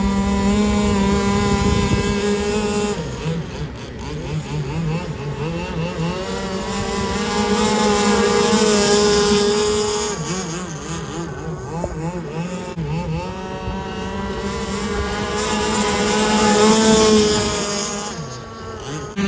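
Two gas-powered RC speedboats racing at full speed, their small two-stroke engines loud and high-revving, each pitch rising and falling as the boats throttle and turn.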